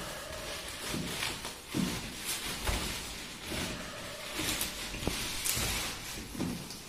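Plastic sack rustling and crinkling as a cardboard box is worked loose and lifted out of it, with a few short knocks of handling.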